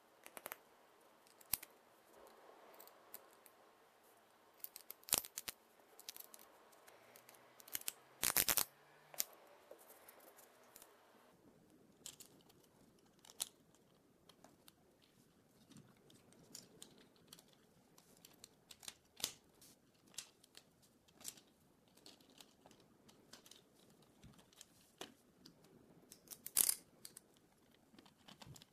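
3D-printed plastic jack parts being handled and fitted together by hand: irregular light clicks and snaps, with a louder run of clicks about a third of the way in and a sharp snap near the end.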